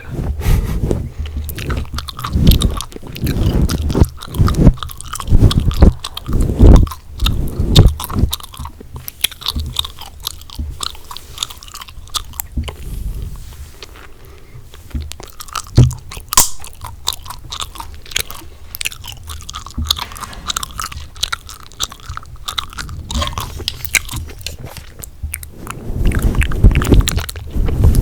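Chewing gum chewed close to the microphone, with wet smacks and sharp clicks. The chewing is heavy in the first several seconds and again near the end, lighter with scattered clicks in between.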